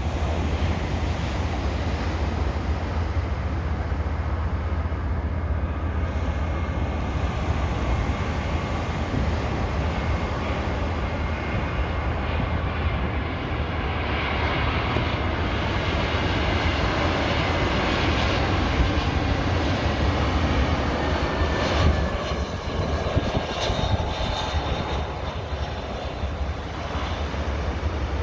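Airliner engines during a landing: a loud, steady low rumble with a faint whine that slides slowly down in pitch. About two-thirds of the way through, the sound drops a little and turns uneven.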